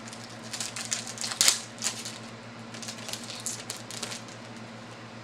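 Trading cards being handled and flipped through: a run of light clicks and papery rustles, the sharpest about one and a half seconds in.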